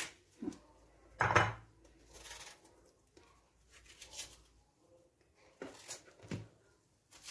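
Apple being peeled with a small kitchen knife over a plate: a few short scrapes and taps of knife and peel on the plate, with quiet gaps between them and the loudest knock about a second in.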